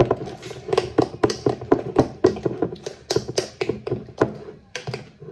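A spoon knocking and scraping against a mixing bowl while cake batter is stirred by hand, in a quick, steady run of taps, about three or four a second.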